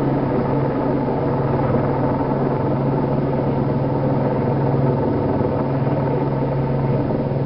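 Helicopter hovering overhead: a steady drone of turbine and rotor with a strong low hum.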